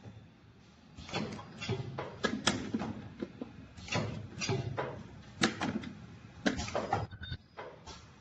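Irregular knocks and clatter, a cluster every second or so, over a low rumble from a small tube filling-sealing machine at work, with small plastic tubes landing in and being handled in a plastic bin.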